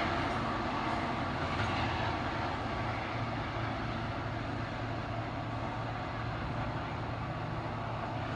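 Commuter train running away down the line, its rumble slowly fading, over a steady low hum.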